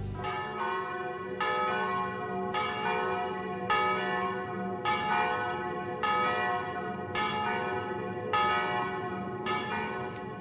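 Church bell tolling, struck evenly a little less than once a second, each stroke ringing on into the next.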